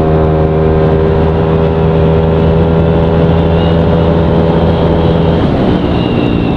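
Yamaha Aerox scooter's single-cylinder engine, bored up to 200cc and breathing through an MTRT EVO 2 stainless exhaust, running at a steady, even pitch while riding. About five seconds in, the steady note breaks up and drops.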